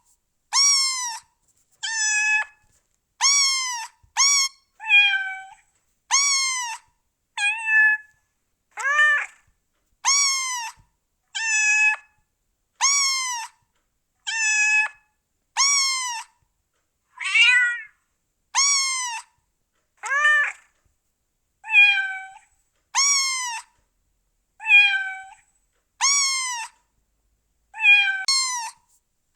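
Domestic cats meowing over and over, one short meow about every second or so with silence between. Each meow rises and then falls in pitch, and the calls vary in shape from one to the next.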